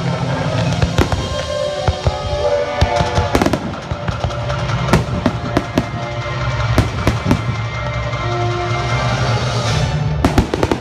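Aerial fireworks shells bursting one after another: many sharp bangs and crackles, with a close cluster of loud bangs near the end, over music playing.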